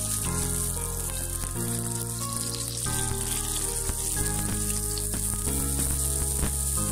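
Pieces of gojar (snakehead fish) sizzling steadily as they shallow-fry in hot oil in a nonstick pan, under background music.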